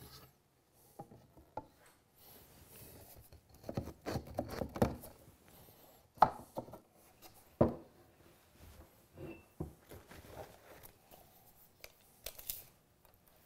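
Steel pipe clamps being set and tightened across a glued-up wooden door frame on a workbench: clatter of clamp jaws and wood being handled, with two sharp knocks about six and seven and a half seconds in.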